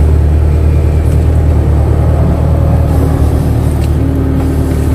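Kato excavator's diesel engine running steadily with a low, even hum while the machine digs and moves soil.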